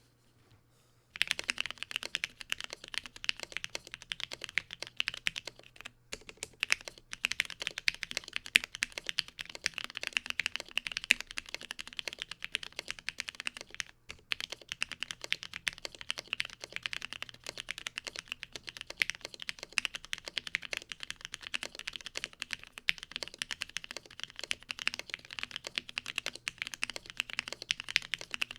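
Continuous typing on a plateless OrangeBoy Ergo mechanical keyboard with stock JWK (JWICK) Black linear switches and PBT keycaps, not tape- or Tempest-modded. Rapid keystrokes start about a second in and run on, with brief pauses around six and fourteen seconds.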